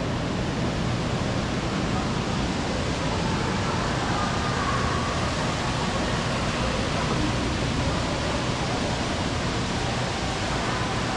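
Steady rushing of a splashing water fountain, with faint voices in the background.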